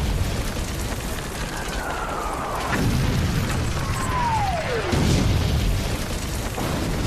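Cannonballs whistling in, each whistle falling in pitch and ending in a heavy boom, twice: about two and a half seconds in and again near five seconds. A continuous low battle rumble underlies both.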